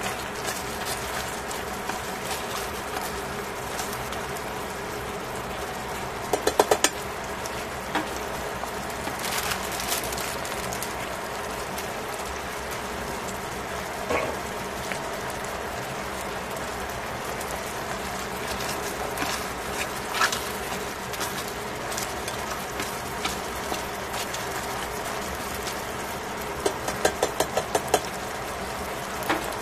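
Pork slices and mushrooms bubbling in liquid in a stainless-steel pot, with a steady crackle. About six seconds in, and again near the end, there is a quick run of clicks as tongs knock against the pot.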